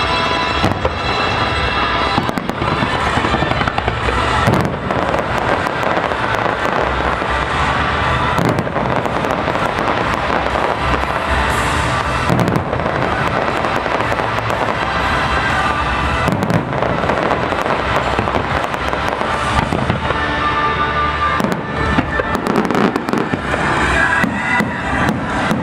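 Fireworks display going off continuously: a dense barrage of bangs and crackling, with no break.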